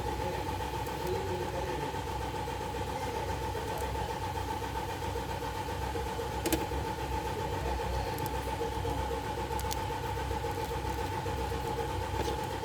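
Steady machine hum with a low rumble and a constant mid-pitched tone. Two sharp clicks come a little after halfway.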